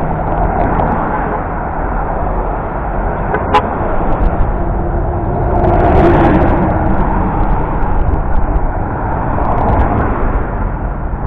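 Steady highway traffic noise as cars and trucks drive past, swelling around six seconds in as a vehicle goes by, with a sharp click about three and a half seconds in.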